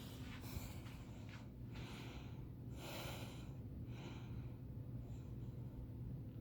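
SMC Promo Deluxe ceiling fan running on low in reverse, its motor giving a low steady hum, with a few soft airy whooshes coming and going.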